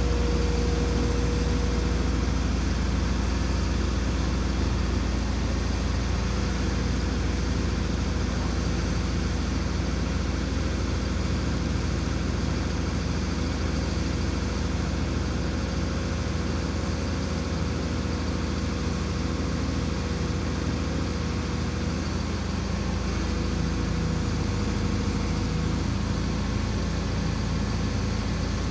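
Heavy machine's engine idling steadily, a low, even hum.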